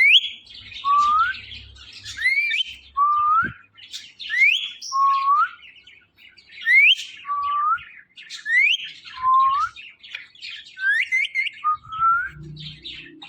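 Ringneck parrot (rose-ringed parakeet) calling in a repeated pattern: about six pairs of short rising whistled notes, each a high sweep followed by a lower rising note, a couple of seconds apart.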